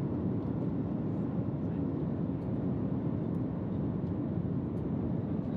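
Steady rumble of airliner cabin noise in cruise, the engine and airflow noise heard inside the economy cabin of a Boeing 737 MAX.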